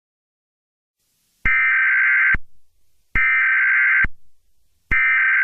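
Emergency Alert System SAME header: shrill digital data tones in bursts just under a second long, the first about a second and a half in, the second about three seconds in, and the third starting near the end. These header bursts carry the coded alert data and mark the start of a new emergency alert.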